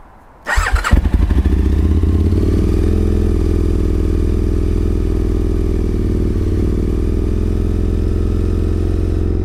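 Aprilia 998 cc 60-degree V-twin motorcycle engine cranked by the electric starter about half a second in, catching almost at once and settling into a steady fast idle. The engine is starting after being cleared of a fuel flood, with the fast-idle lever pulled on.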